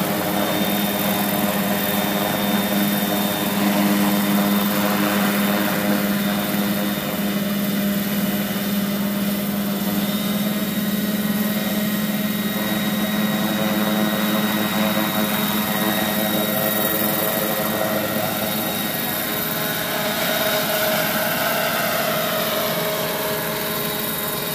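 Radio-controlled scale model helicopter flying: a steady machine sound made of several held tones, with a thin high whine on top. Near the end some of the tones slide lower and it gets a little quieter.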